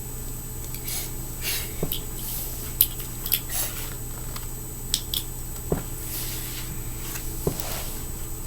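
Small sharp clicks and short scrapes of a tiny fingerboard tool and small parts being handled while the truck hardware is worked on, scattered irregularly, over a steady low hum.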